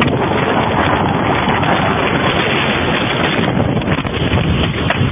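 Loud, steady wind buffeting the microphone: a dense rushing noise with no clear pitch.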